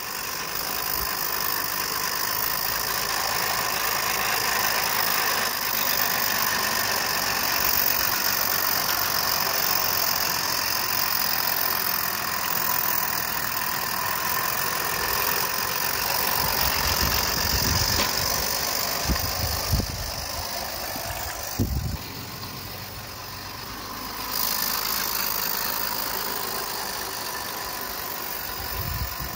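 Regner Henry, a geared gas-fired 16mm-scale live-steam locomotive, running with a short train: a steady hiss of steam. A few low thumps come about two-thirds of the way through.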